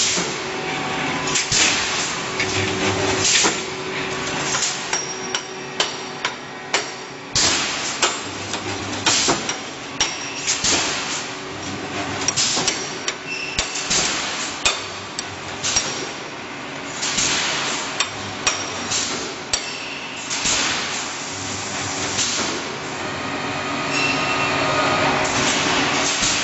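Automatic rebar mesh welding machine running, with sharp metallic clanks at irregular intervals of about one to two seconds as cross wires are fed and welded. The clanks sit over a steady machine hum.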